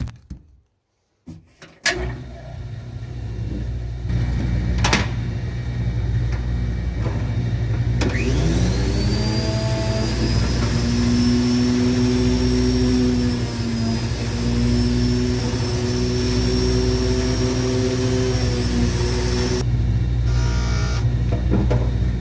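A machine running steadily with a low drone. About eight seconds in, a high whine rises quickly and then holds, with steady lower tones under it, until it drops away a few seconds before the end.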